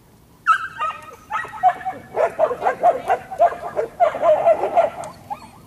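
Excited dog barking and yipping: a fast run of high yaps, several a second, starting about half a second in and breaking off shortly before the end.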